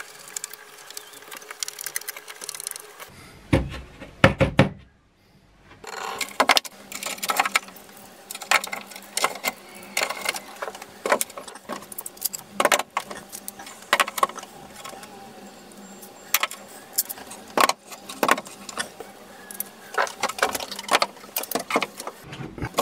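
Metal clamps clinking and knocking as they are handled and hung on a wall-mounted clamp rack: irregular sharp clicks and clanks, with a few heavier thumps about four seconds in.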